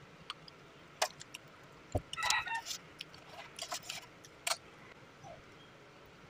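Metal spoon and fork clicking and scraping against a ceramic plate while scooping sticky rice, a scatter of light clicks. About two seconds in there is a low knock followed by a brief pitched sound.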